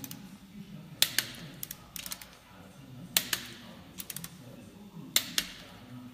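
Click-type torque wrench clicking sharply as it reaches its set torque on the cylinder-head stud nuts, in three double clicks about two seconds apart, with lighter ratchet ticks between them as the wrench is set on each nut in turn.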